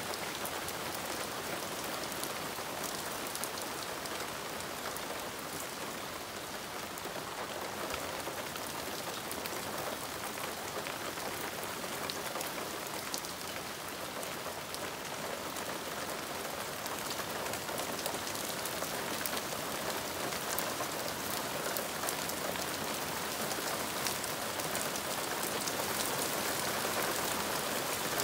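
Hard rain falling steadily on leaves and lawn: a dense hiss with many separate drop ticks, growing a little heavier near the end.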